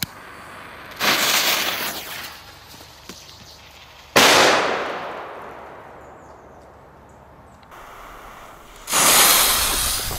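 A firecracker's fuse hissing for about a second and a half, then a single sharp bang about four seconds in that fades away over a couple of seconds. Near the end a loud steady hiss of a spray of firework sparks starts.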